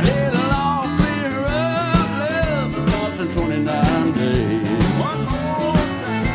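Live country band playing an instrumental passage: drum kit, bass and electric guitars under a lead melody that slides and bends in pitch, from a lineup with fiddle and pedal steel guitar.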